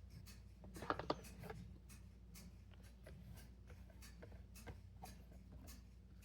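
Small fidget toys being handled and sorted, giving scattered light clicks and taps, with two sharper clicks about a second in.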